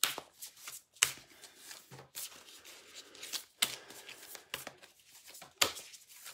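A deck of oracle cards being shuffled and handled: an irregular run of brushing, flicking clicks, the sharpest at the start, about a second in and near the end.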